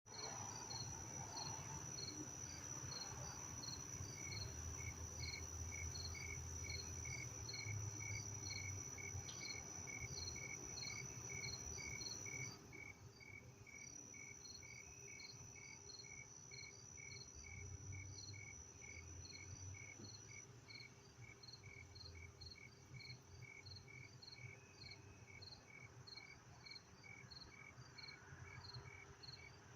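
Crickets chirping, an even run of short chirps at about two a second at two different pitches. A steady high-pitched tone runs alongside and stops about two-thirds of the way through, over a low rumble.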